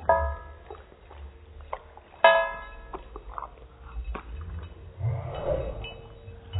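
A small dog licking gravy from a plate, with sharp ringing clinks against the plate: a loud one right at the start, the loudest about two seconds in, and softer ticks between.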